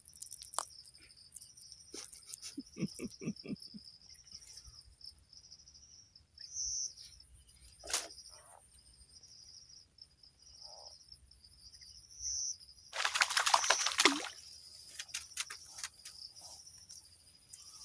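Insects chirring in a steady, high-pitched chorus, with a few louder chirps standing out now and then. About thirteen seconds in, a loud rustling noise lasts about a second.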